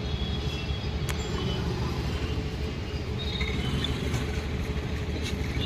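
Steady rumble of road traffic, with a sharp click about a second in.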